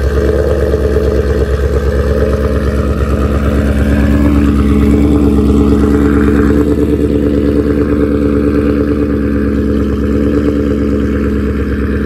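Ford Mustang GT's 5.0 V8 idling steadily through JBA long-tube headers with no catalytic converters, an X-pipe, deleted resonators and Roush mufflers, its exhaust loud, shortly after its first cold start on a new tune.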